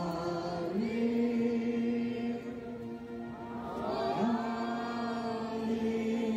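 Devotional chanting in long held notes, two drawn-out phrases that each open with a rising slide, one about a second in and the next about four seconds in.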